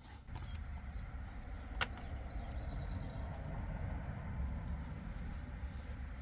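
Steady low rumble of a running vehicle engine, with a single sharp click about two seconds in.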